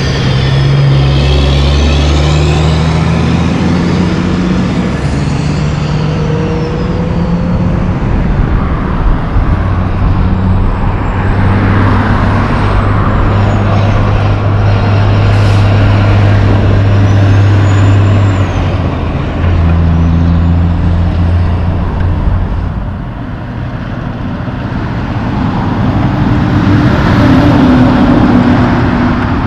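Loaded diesel logging trucks driving past close by, one after another: a steady engine drone with tyre and road noise. It drops briefly past the middle, then swells again as the next truck comes near.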